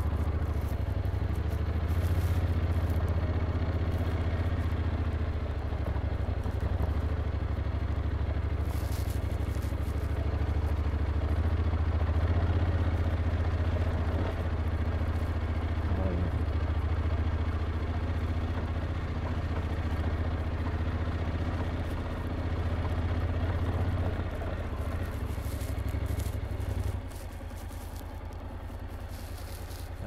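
Honda NC750X DCT's parallel-twin engine running steadily at low revs while riding, easing off and getting quieter near the end.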